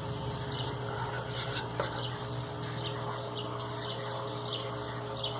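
Small spoon stirring and scraping a sticky glue-and-boric-water slime mixture in a cup, with faint scattered scratchy ticks over a steady low hum.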